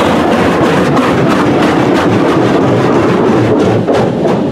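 High-pressure water jets of a PDQ LaserWash 4000 touchless car wash blasting against the car's windshield and body, heard from inside the car. A loud, dense rush of spray with quick flutters, easing slightly near the end.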